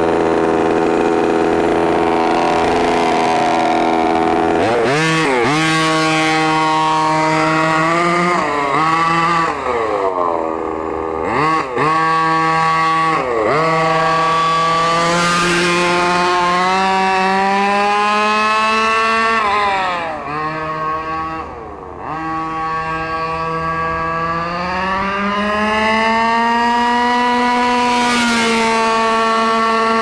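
Small 26 cc two-stroke gas engine of a 1/5-scale Redcat MT RC monster truck, idling steadily at first. About four seconds in it begins revving up and down again and again as the truck drives off. It eases off and falls quieter about twenty seconds in, then climbs in pitch once more near the end.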